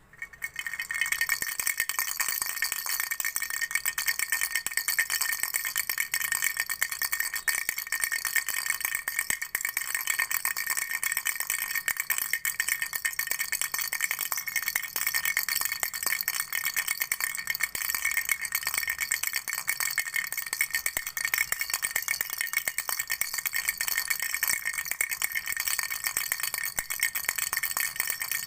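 Flower-shaped baby rattle shaken without a pause: a dense, fast rattle that starts about a second in and keeps going.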